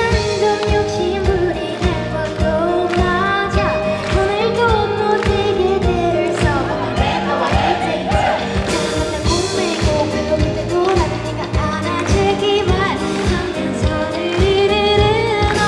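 Live pop song: a female lead vocalist singing into a handheld microphone over an amplified band with acoustic guitar and a steady drum beat.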